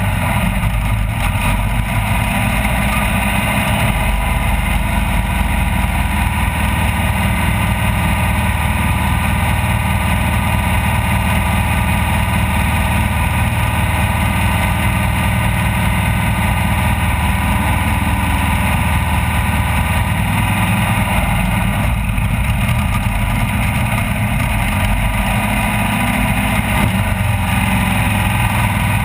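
Off-road race vehicle's engine running steadily at speed, with the rattle and rush of the vehicle driving over rough ground.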